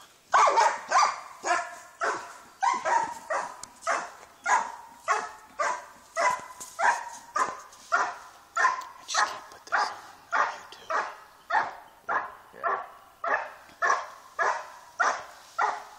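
A Schutzhund protection dog barking steadily and rhythmically at a helper hidden in a blind, about three barks every two seconds. This is the hold-and-bark phase of the IPO protection routine, in which the dog holds the helper at the blind by barking.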